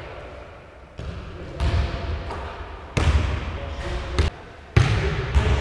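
A basketball bouncing on a wooden gym floor: about five or six separate, irregularly spaced thuds, each echoing in a large hall.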